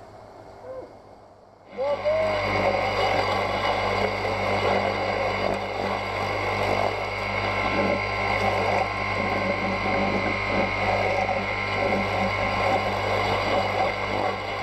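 A motorised grass cutter's engine comes in abruptly about two seconds in and runs steadily at a constant pitch.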